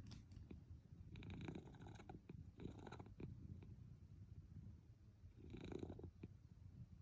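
A sleeping Munchkin cat purring, a faint steady low rumble. Three louder, breathy swells come about one, two and a half, and five and a half seconds in.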